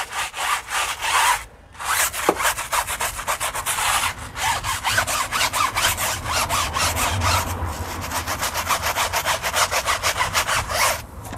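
Stiff-bristled tyre brush scrubbing a foam-covered rubber tyre sidewall in rapid back-and-forth strokes, agitating wheel and tyre cleaner foam to lift the brown grime off the tyre. The scrubbing pauses briefly about a second and a half in and stops just before the end.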